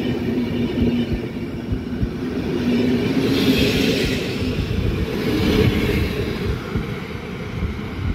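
PKP Intercity passenger coaches rolling past close by as the train pulls out: a steady rumble of wheels on rail with a low hum early on and some higher hiss in the middle, easing as the last coach moves away near the end.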